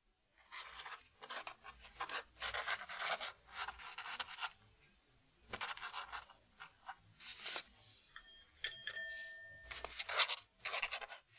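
Paper and a pen handled on a desk: a dozen or so short rubbing, scratching strokes, with a brief ringing tone about eight seconds in.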